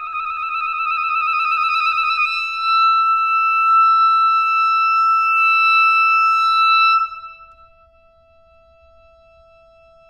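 Contemporary music for clarinet and accordion. A single loud high note is held for about seven seconds, wavering quickly at first and then steady. It cuts off suddenly, leaving a faint held octave sounding on.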